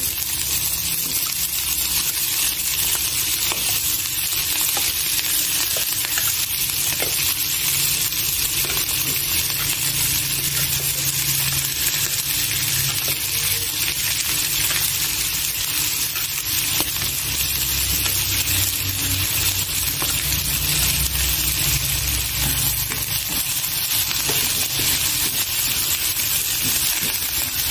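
Shell-on shrimp frying in hot oil and golden fried garlic in a frying pan: a steady sizzling hiss, with the light scrape and click of chopsticks stirring them now and then.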